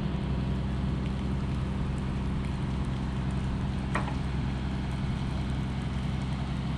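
Steady low engine rumble, as of heavy machinery or vehicles running close by, under a wash of outdoor noise. A brief high chirp cuts through it about four seconds in.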